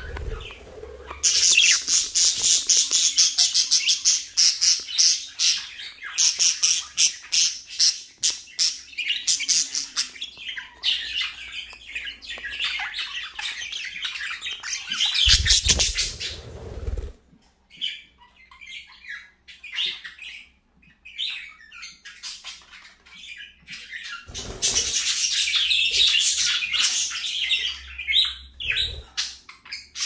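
Budgerigars chattering and warbling: fast runs of high chirps, densest in the first ten seconds and again near the end, with sparser chirps in between. A brief low rumble about halfway through.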